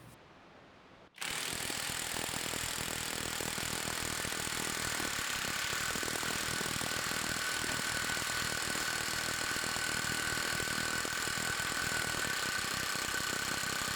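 Kobalt 24-volt cordless mid-torque impact wrench hammering continuously on a torque tester, running on a small 2 Ah battery pack. It starts about a second in and goes on at a steady level, with a thin steady whine coming up partway through.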